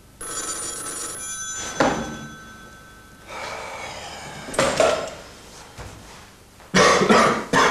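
Telephone bell ringing for about a second and a half, cut off with a sharp knock; rougher clattering and knocking sounds follow, with a loud burst near the end.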